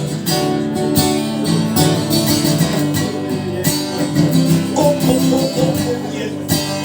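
Acoustic guitar strummed in steady chords in an instrumental passage of a rock song, between sung lines.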